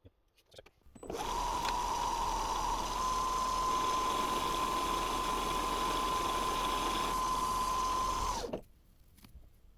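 Metal lathe running with a steady whine, starting about a second in and winding down near the end.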